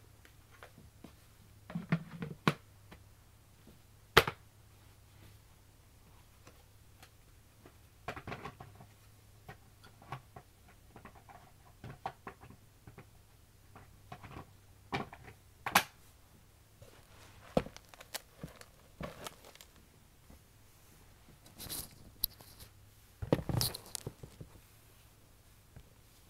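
Sparse handling noises: scattered sharp clicks and taps with short crinkly rustles, busiest near the end, over a faint low hum that stops about three seconds before the end.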